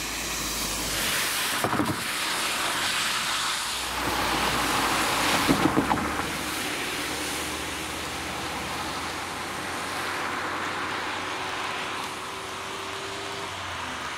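Cars driving across a level crossing on a rain-soaked road, tyres hissing through the water, with two short clusters of thumps, one about 2 seconds in and one about 6 seconds in. A faint steady hum runs through the second half.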